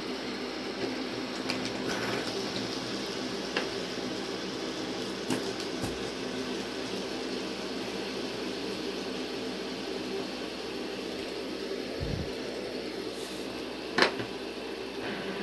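Many fidget spinners whirring together on a hard wooden tabletop, a steady multi-toned hum, with a few light clicks as they are flicked and handled and one sharp click near the end.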